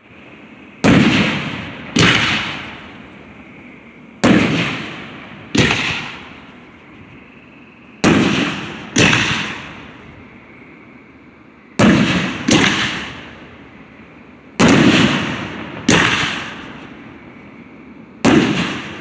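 Aerial fireworks shells bursting: about eleven sharp bangs, mostly in pairs a second or so apart every few seconds, each trailing off in a rolling echo.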